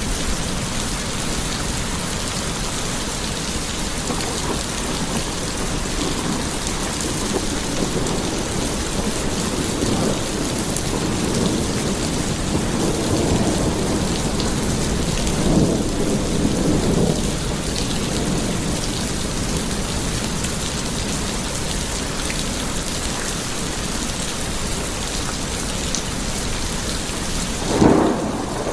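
Steady heavy rain falling, with rolling thunder that swells through the middle and a sharper, louder clap near the end.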